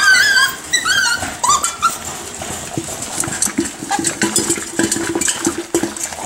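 Miniature schnauzer puppies whining and yipping in high, wavering cries for about the first two seconds, then a busy clatter of clicks as kibble rattles in a stainless steel feeding pan and the puppies eat.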